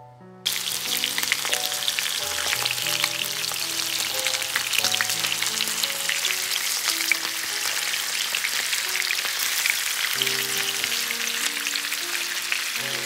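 Chicken thighs frying in a hot pan: a steady loud sizzle dense with small crackling pops, starting abruptly about half a second in.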